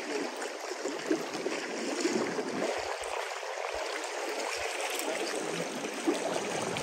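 Steady trickling and rushing of water, even and unbroken, with no low rumble.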